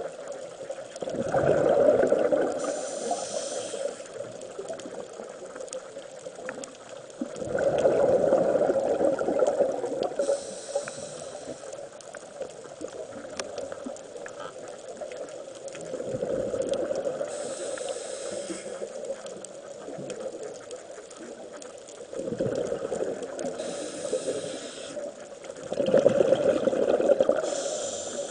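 Scuba diver breathing on a regulator underwater: a regular cycle of about five breaths, roughly one every six seconds, each a loud bubbling rush of exhaled air with a hiss near its end.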